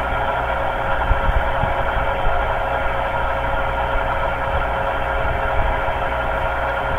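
Metal lathe running as its cutting tool turns an aluminium part: a steady machine hum with one constant mid-pitched tone.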